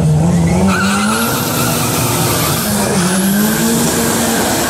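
Drag-racing cars launching hard from the start line and accelerating away down the strip. The engine pitch climbs, dips once at a gear change about three seconds in, and climbs again. A high whine rises with it, breaks at the shift and rises again.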